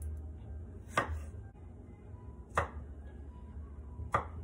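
Kitchen knife cutting strawberries, the blade knocking sharply on the cutting board three times, about a second and a half apart.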